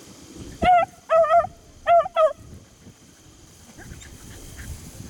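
Beagle baying: a quick run of short, high yelps, four or five of them, starting about half a second in and over within two seconds.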